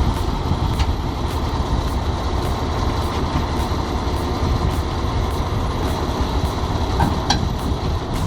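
Heavy-equipment diesel engine running steadily, a low rumble, with a brief sharp higher-pitched sound about seven seconds in.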